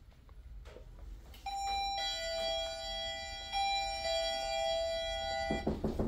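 Electronic two-tone doorbell chime: a high note dropping to a lower one, the pair sounding twice, starting about a second and a half in.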